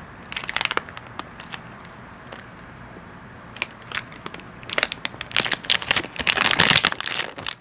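Foil snack wrapper crinkling in the hands. There are a few short crackles about half a second in, then a dense stretch of crinkling from about five seconds in, loudest shortly before the end.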